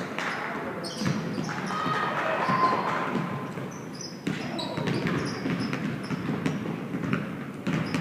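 Irregular knocks and thuds on a hardwood gym floor with short sneaker squeaks, over a murmur of voices echoing in a large hall.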